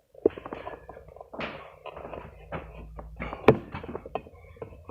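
Handling noise: a run of knocks, taps and rustles. One sharp click about three and a half seconds in is the loudest.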